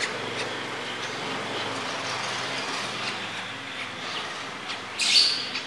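Steady background hiss with scattered small clicks, and one short, sharp chirp from a young lovebird about five seconds in.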